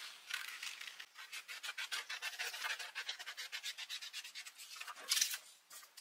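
Scissors cutting through paper, cutting out a paper template in a rapid run of short snips. A brief louder sound comes about five seconds in.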